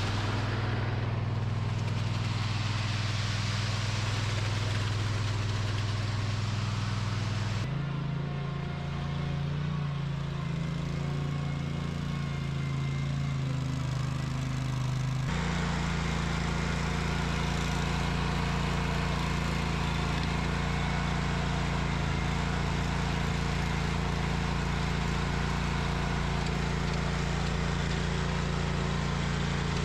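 An engine running steadily at a constant speed. The pitch jumps to a new steady level about a quarter of the way through and again about halfway through.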